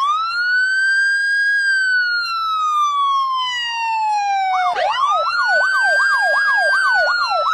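Women imitating an emergency siren with their voices: a wail that rises quickly, holds, then slowly falls. About four and a half seconds in, the wail starts again and a second voice joins with a fast up-and-down yelp, about three swoops a second, over it.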